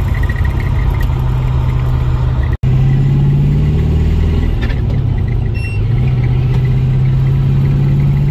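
Car engine running steadily while driving, heard from inside the car. In the first second or so there is a faint repeated squeak, which the owner traces to the floor gear shifter rather than the speedometer.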